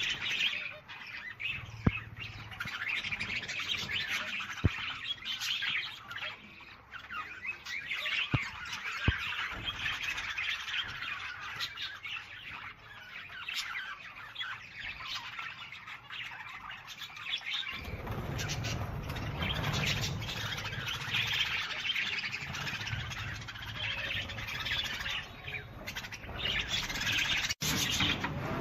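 Many birds calling at once, a dense chatter of short overlapping calls, with a few sharp clicks early on. A low background noise comes in about two-thirds of the way through, and the sound drops out for an instant near the end.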